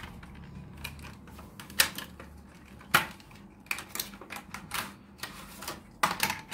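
Irregular sharp clicks and taps of a plastic-packaged phone case being handled and opened, the loudest about two and three seconds in.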